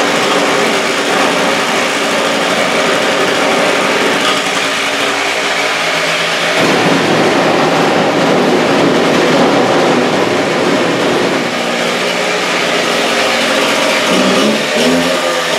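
Gas-powered cut-off saw's small two-stroke engine running steadily, its pitch rising near the end as it is throttled up.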